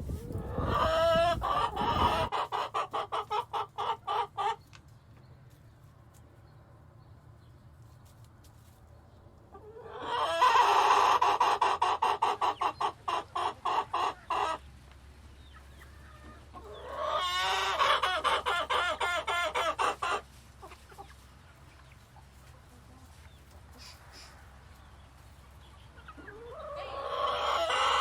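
Chickens clucking in four bouts of a few seconds each, each a quick run of repeated calls, with quieter pauses between.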